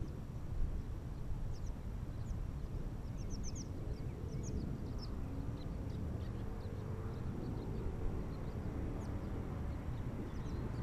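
Wind rumbling on a bare action-camera microphone, with small birds chirping over it. A faint engine hum that glides up and down in pitch comes in about four seconds in.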